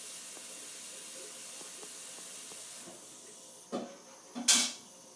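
Steady hiss of a recording's background noise, dropping slightly about three seconds in, with two short breaths from the narrator near the end.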